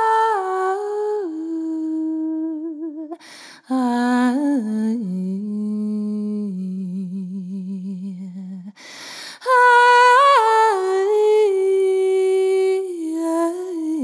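Wordless a cappella vocal improvisation: a woman's voice holds long notes that step down in pitch phrase by phrase, with vibrato. A lower voice carries the line in the middle, and breaths are heard between phrases.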